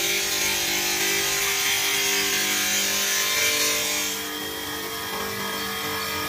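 Angled diamond blade of a tile mitre-cutting machine wet-cutting a large-format tile slab at 45 degrees, a harsh grinding hiss over the steady hum of the blade motor. The high hiss eases about four seconds in while the motor keeps running.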